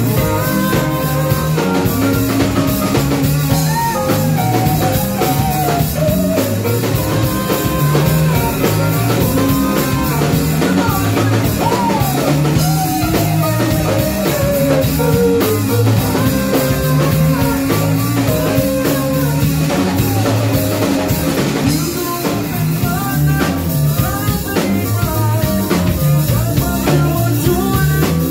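Live rock band playing with drum kit, electric guitar, keyboards and vocals, over a steady beat.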